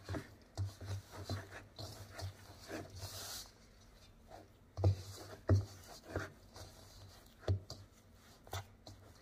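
Hand squeezing and kneading sticky flour-tortilla dough in a stainless steel mixing bowl: irregular soft squishing and rubbing, with dull thumps as the dough is pressed against the bowl, the strongest a little under five and about five and a half seconds in.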